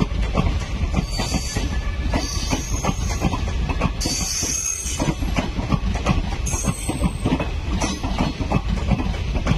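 Passenger coaches behind a diesel locomotive pulling out, wheels knocking over the rail joints with a steady low rumble underneath. Several short high wheel squeals come through, the strongest about four seconds in.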